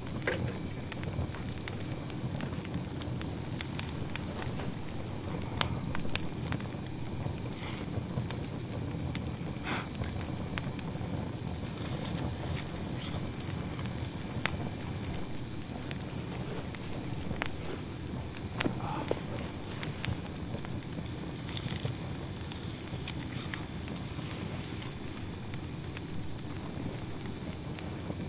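Small wood campfire crackling, with sharp pops scattered irregularly throughout. Under it runs a steady high trill of night insects.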